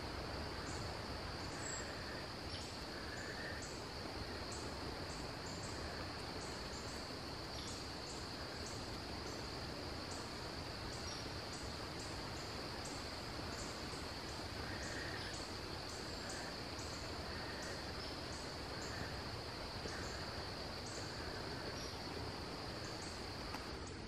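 Outdoor insect chorus: a steady high-pitched drone with frequent short, higher chirps scattered through it, over a low, even background rumble.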